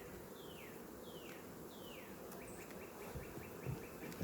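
Honeybees buzzing around an open hive, a steady low hum. Over it a bird whistles a run of about five falling notes in the first half.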